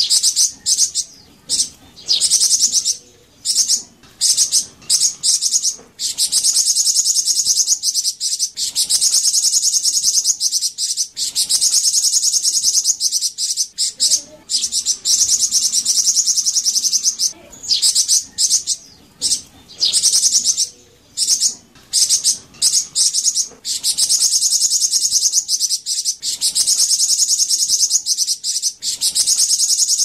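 Flamboyan songbird singing a high-pitched, rapid buzzing trill in long phrases of several seconds, broken by short pauses.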